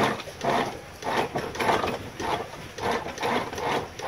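Hand-worked ratcheting deck gear at a catamaran's bow, cranked in regular strokes a little under two a second.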